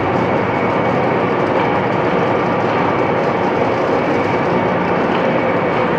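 Large CNC horizontal boring mill running, a loud, steady machine noise with a faint high whine held throughout.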